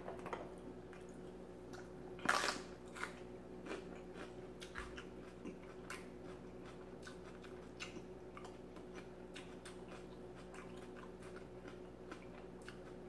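A person biting into food and chewing: one louder crunchy bite about two seconds in, then faint, irregular wet chewing clicks.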